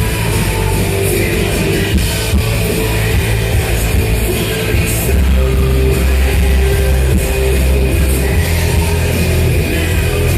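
Loud heavy rock music with distorted electric guitar and a drum kit.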